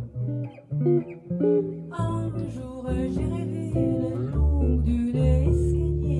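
Small jazz band music: guitar and double bass playing, with drum cymbals coming in about two seconds in.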